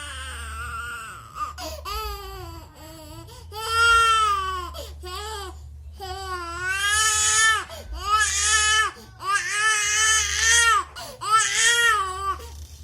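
A baby with a cough and cold crying hard, in a string of high wails about a second each with short catches of breath between.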